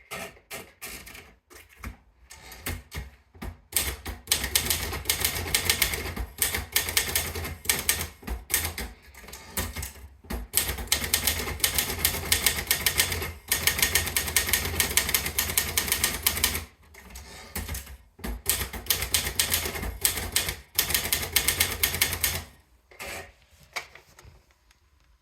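Hema 44K typewriter being typed on: a few scattered key strikes at first, then fast, dense runs of strikes from about four seconds in, broken by short pauses, thinning to a few strikes near the end.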